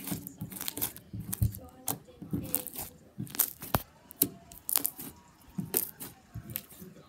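Slime being squeezed, folded and poked by hand, giving a quick irregular string of sharp sticky pops and clicks, the loudest right at the start.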